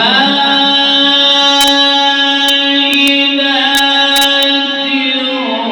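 A man reciting the Quran in the slow, melodic mujawwad style, holding one long sung note through a drawn-out vowel for about five and a half seconds. The pitch falls near the end.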